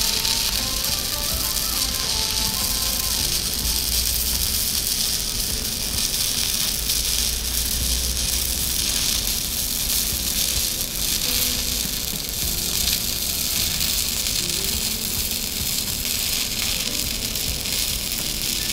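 Stick (MMA) welding arc on a vertical fillet weld, crackling and sizzling steadily without a break. Soft background music plays under it.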